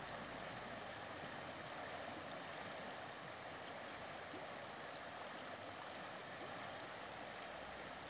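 Shallow river rushing over riffles and stones, a steady rushing of water.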